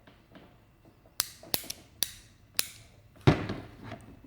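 Four sharp clicks about half a second apart, then a heavier knock a little over three seconds in: hard objects being handled and set down.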